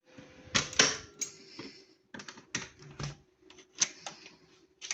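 A run of irregular sharp clicks and light knocks, the loudest about a second in, over a faint steady hum.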